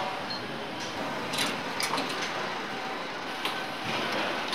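Engine assembly line ambience: a steady machinery hum with a handful of sharp metallic clicks and clanks of tools and parts scattered through it.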